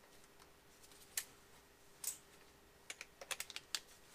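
Light, sharp clicks of a T30 Torx bit being fitted into a cordless drill: two single clicks, then a quick run of clicks near the end.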